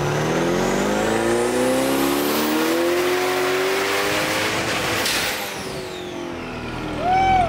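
Twin-turbocharged C8 Corvette LT2 V8 making a full-throttle pull on a hub dyno. Engine revs climb steadily for about four and a half seconds with a rising turbo whistle over it, then it lets off about five seconds in and the revs and whistle fall away. A short louder sound follows near the end.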